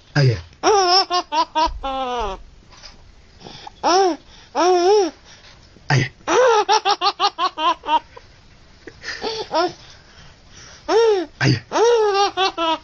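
A baby laughing in repeated high-pitched bouts, some breaking into quick runs of short giggles, with brief pauses between bouts.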